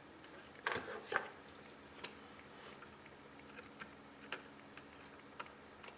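Light clicks and taps of a soldering tool against a small metal toy base plate while a rivet head is soldered onto its post. There are two louder clicks about a second in, then scattered faint ticks over a low steady hum.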